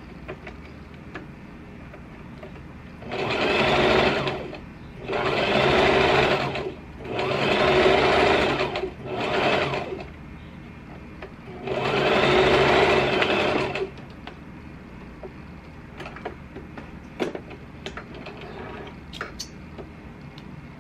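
Small electric domestic sewing machine stitching the fabric of a face mask in five short runs of one to two seconds each, stopping and starting between them, then falling still about two-thirds of the way through. Faint clicks of fabric handling and thread snipping follow.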